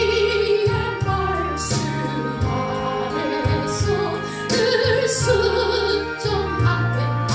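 A solo singer performing a Korean gospel hymn, holding long notes with vibrato, over an instrumental backing track with a steady bass line.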